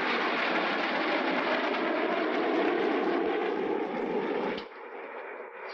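Jet airliner's engines running in flight, a steady loud roar. About four and a half seconds in it drops suddenly to a quieter, even hum.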